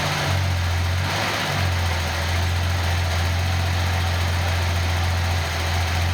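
Nissan L28ET turbocharged 2.8-litre straight-six idling steadily, with its misfire cured by a new manifold gasket. It keeps running with the temperature sensor unplugged.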